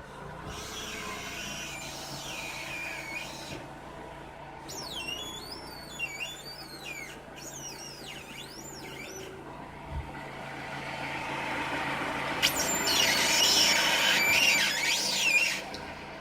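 A car squeaking as it turns: high-pitched, wavering squeals in three stretches, the last and loudest near the end, with a couple of sharp clicks, over a steady low hum.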